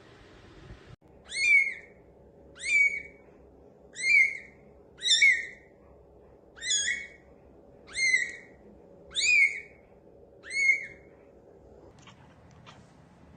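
Newborn kitten mewing: about eight short, high-pitched cries, roughly one a second.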